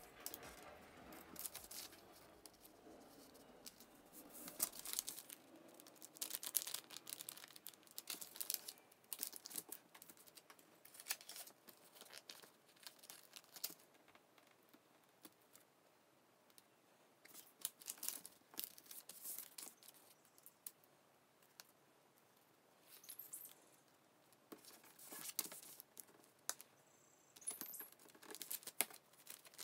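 Tracing paper rustling and crinkling as it is handled, in irregular crackly bursts with quieter pauses between them.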